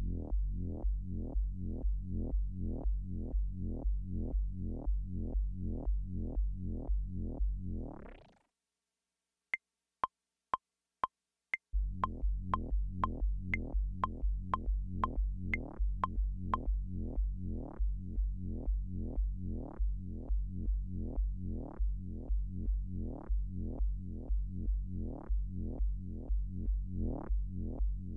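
Arturia Pigments software synthesizer playing a repeating electronic pattern: deep bass notes, each with a rising sweep, about three a second. About eight seconds in, it sweeps upward and cuts out. A handful of short, sharp high blips follow for about two seconds before the pattern returns.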